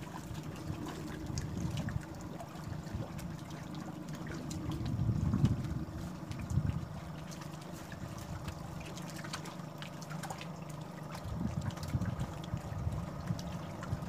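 Choppy, wind-driven water slapping and gurgling against the side of a floating fishing platform, in uneven swells, with a louder slosh about five seconds in.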